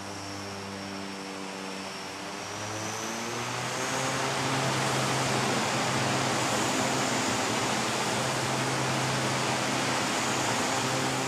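Twin-turboprop airliner's engines powering up: a propeller drone with a high turbine whine, whose pitch climbs about two to four seconds in and swells into a loud, steady roar as the aircraft starts rolling toward the camera.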